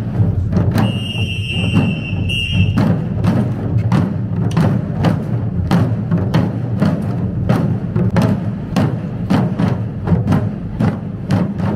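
Shishi odori deer-dance drums: many dancers beating the taiko drums at their bellies in a steady, even beat of about three strokes a second over a steady low hum, with a brief high tone from about one to three seconds in.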